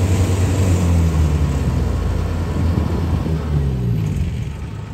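Kubota DC70 combine harvester's diesel engine running under load, its pitch rising and falling twice as the revs change, and growing quieter near the end.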